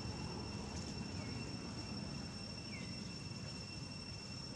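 Insects trilling steadily at a high pitch, with a short falling chirp about every second and a half, over a low outdoor rumble.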